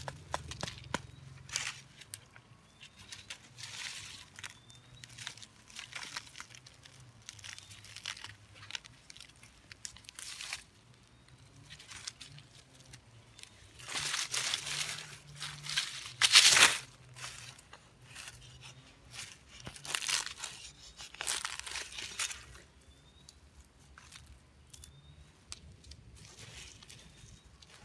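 Dry leaves and twigs crunching and rustling under hands clearing and scraping at leaf litter and dirt on the ground. It comes in irregular bursts, the loudest about fourteen to seventeen seconds in.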